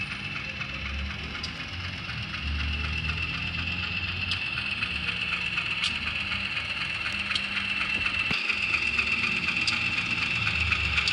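Sound decoder of an HO-scale CC206 diesel locomotive model playing its diesel engine running sound through a small speaker, a steady high tone over a fast even ticking, getting louder about two and a half seconds in. A few light clicks are heard in the second half.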